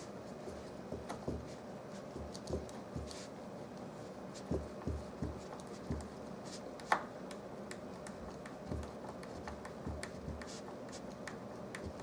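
Phillips screwdriver turned by hand, driving a screw through a plastic sliding-door stopper: faint, irregular small clicks and knocks, with one sharper click about seven seconds in.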